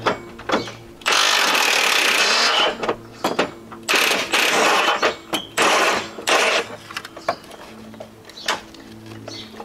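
Cordless stubby impact wrench hammering on a bumper mounting bolt: one long burst about a second in, then several shorter bursts, with clicks and rattles between.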